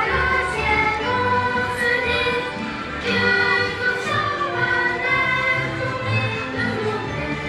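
Music with a choir singing over instruments, several voices together in a continuous melody.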